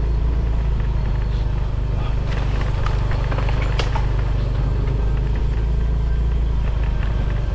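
Motorcycle engine running at a steady pace while riding, with a couple of sharp rattles about two and four seconds in.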